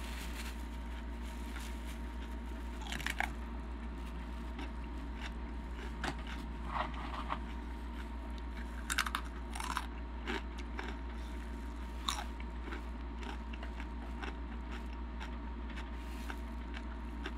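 Close-miked crunching and chewing of hard, spicy Takis rolled tortilla chips and cream-cheese-stuffed jalapeño. There are a few sharp, crisp crunches about 3, 6 to 7, 9 to 10 and 12 seconds in, with quieter chewing between them, over a steady low hum.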